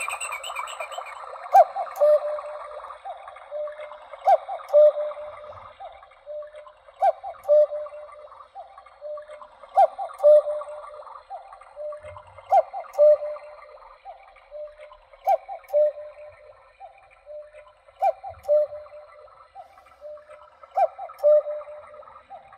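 Trenkle battery (quartz) chalet cuckoo clock calling the hour with its electronic cuckoo: a two-note "cu-ckoo", higher then lower, repeated eight times about every two and a half seconds, which counts out eight o'clock.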